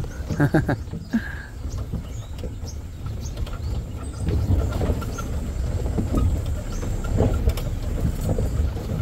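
Safari jeep driving down a forest track: a low, uneven engine rumble with scattered knocks and rattles.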